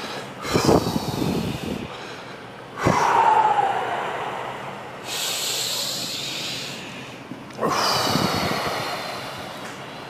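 A person breathing hard through an assisted deep stretch: forceful, hissing exhales and strained vocal sounds, one falling in pitch. There is a sharp knock about three seconds in.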